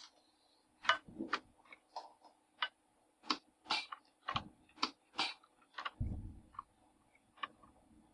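Irregular light clicks and taps of small hand tools at a soldering bench, about fifteen in all, with a duller knock about a second in and another about six seconds in. A faint steady hum runs underneath.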